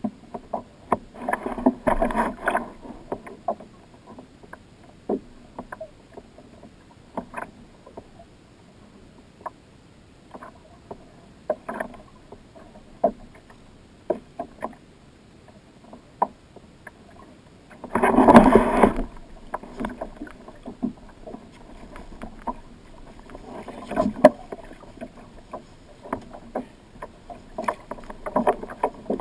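Small waves slapping and splashing against the hull of a Hobie fishing kayak, with scattered short knocks and taps. One louder splash, about a second long, comes about two-thirds of the way through.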